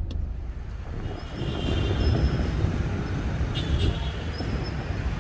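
City street traffic: a steady low rumble of motorbikes and cars going past.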